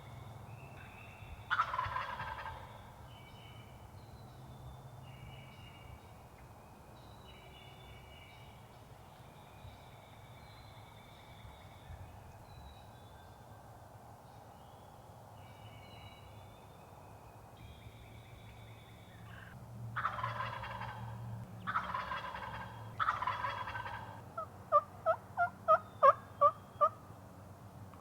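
Wild turkey gobbler gobbling: one gobble about two seconds in, then three gobbles in quick succession about twenty seconds in. Right after them comes a quick run of about nine short, sharp yelping notes. Small songbirds sing faintly throughout.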